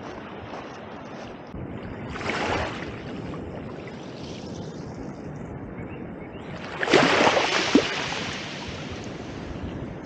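Small sea waves washing in over a shallow, pebbly shore. There are two louder swells of rushing water, a short one about two seconds in and a bigger one about seven seconds in with a few sharp clicks.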